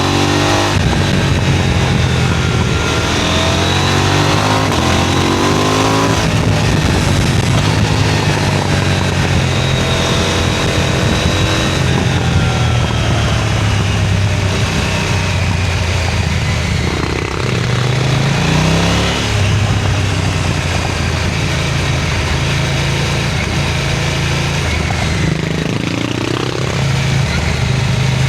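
KTM 990 Duke twin-cylinder engine and exhaust running under way, the revs rising and falling through throttle changes and gear shifts.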